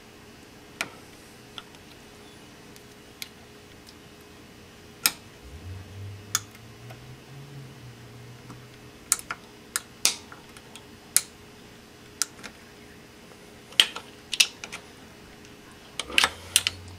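Irregular sharp metallic clicks and taps of a screwdriver tip working at the retaining clip on a Toyota 4Runner driveshaft universal-joint bearing cap, prying it off to replace the worn U-joint. The clicks come in quick clusters toward the end, and a faint low hum runs for a few seconds near the middle.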